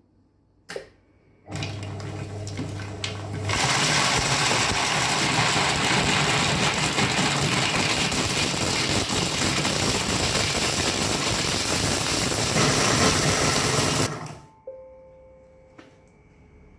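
Monsieur Cuisine Connect food processor blades chopping frozen strawberry pieces. The motor starts about a second and a half in and gets louder about two seconds later as the speed is raised gradually from 3 toward 8, then stops abruptly about fourteen seconds in. A faint electronic tone follows.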